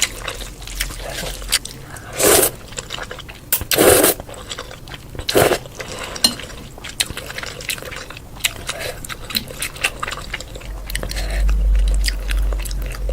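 A person eating close to the microphone: bites and chewing with many small mouth clicks, and louder crunchy bites about two, four and five and a half seconds in. A low rumble comes in near the end.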